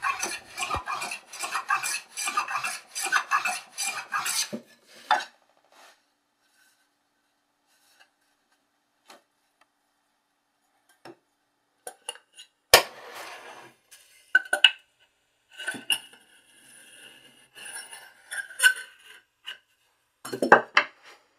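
Hand plane run on its side along a shooting board, taking quick repeated strokes that shave a board's edge straight, which stop after a few seconds. Later come scattered knocks and scrapes, with a sharp knock about halfway through.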